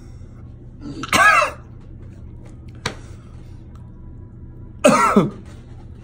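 A man's two loud, pained vocal outbursts, hacking cough-like cries about a second in and again near the end, each falling in pitch: his reaction to the burn of black Carolina reaper pepper chocolate. A short sharp click comes in between.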